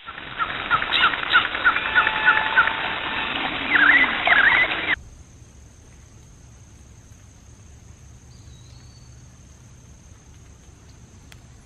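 Birds chirping: a quick run of short repeated calls, then a few louder sweeping calls, cutting off abruptly about five seconds in. After that only faint woodland ambience with a steady high-pitched tone.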